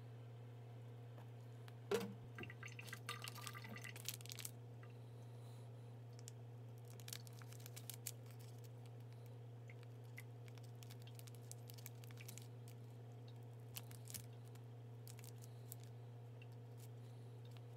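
Shell of a century egg being cracked and peeled by hand: a sharp knock about two seconds in, then a couple of seconds of fine crackling. Faint scattered clicks and crinkles follow, over a steady low hum.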